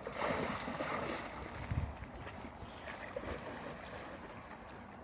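Stream water running, with wind buffeting the microphone in low rumbles.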